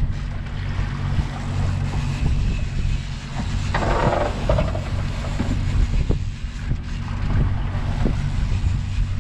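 Outboard motor running steadily while the boat trolls, with wind buffeting the microphone. A brief rush of noise comes about four seconds in.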